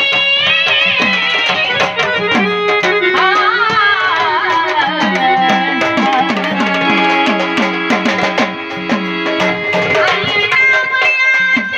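Instrumental passage of Marathi gavlan folk music: a tabla-like hand drum keeps a quick, steady beat under a melody whose notes slide and waver in pitch.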